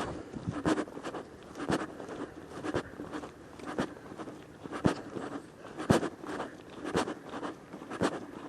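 Footsteps of a person walking along a hiking trail, a crunching scuff about once a second in a steady rhythm.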